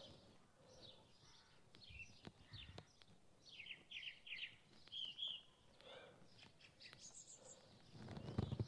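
Faint birdsong: small birds chirping in short high notes, with a quick run of chirps a few seconds in, and a couple of soft clicks.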